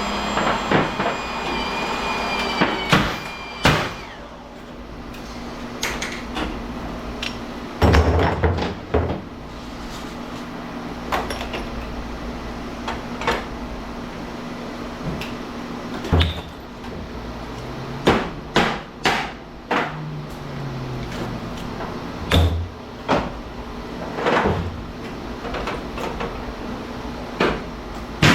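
Hammer blows and metal clanks at irregular intervals, from transformers being knocked apart for their copper. A power tool's motor whines for the first few seconds and then stops.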